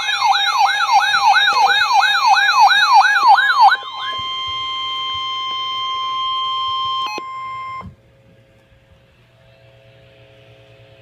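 Emergency alert audio: an electronic siren sweeping rapidly up and down, about three to four sweeps a second, gives way about four seconds in to a single steady alert tone, the kind that opens a weather-radio warning. The tone cuts off about eight seconds in, leaving a faint steady hum.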